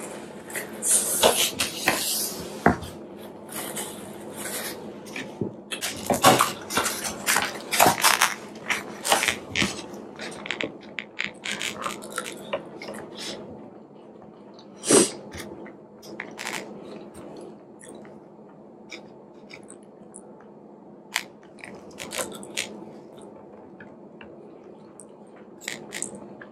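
Close-miked eating: chewing with plastic spoon and fork clicking and scraping in a styrofoam takeout container. The clicks are busiest in the first half, with one sharp loud click about 15 seconds in.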